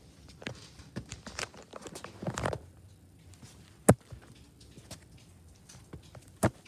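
Scattered light taps and clicks of handling or movement, with two sharp knocks, one about four seconds in and one near the end.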